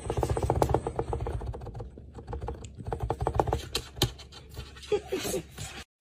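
A kitten's paws and claws tapping and clicking rapidly on a cardboard box: a dense run of small clicks that thins out after about three and a half seconds.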